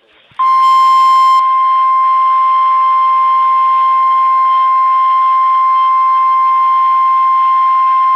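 NOAA Weather Radio 1050 Hz warning alarm tone: one steady, loud tone over a hiss of radio static. It starts about half a second in and does not break, signalling that a new warning broadcast is about to follow.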